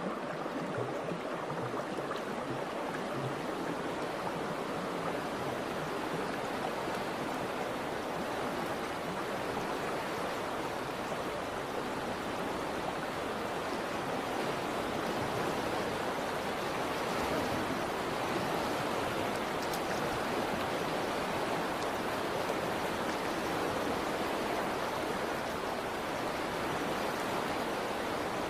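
Steady, even rushing noise like running water from a stream or waterfall, with no tune, beat or voice, and no change in level.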